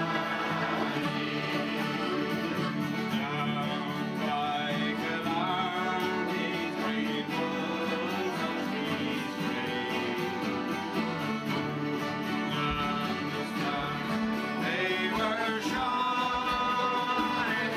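A man singing a song to acoustic guitar, with accordion chords held underneath.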